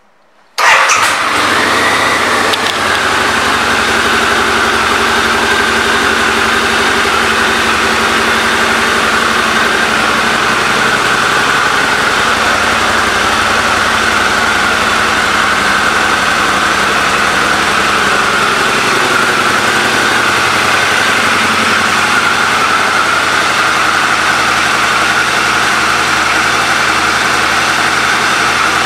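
2004 Harley-Davidson V-Rod's liquid-cooled Revolution V-twin engine starting about half a second in, then idling steadily.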